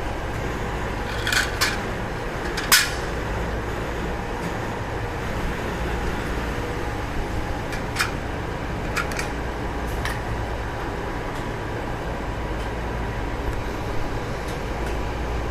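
CNC roll-up door spring machine running: a steady mechanical hum with sharp clicks now and then, a cluster in the first few seconds and a few more around the middle.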